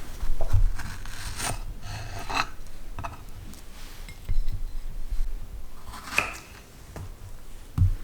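Kitchen food-prep sounds: a few separate short cutting and scraping strokes with light clatter of utensils.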